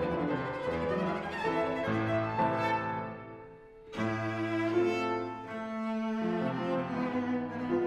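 Cello and piano playing classical music, the cello bowing a melody. About three seconds in the sound dies away briefly, then comes back with a strong accented attack about a second later.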